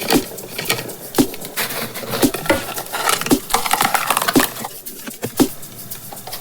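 Surprise eggs being handled and opened: a string of irregular sharp clicks and knocks, with some rustling about halfway through.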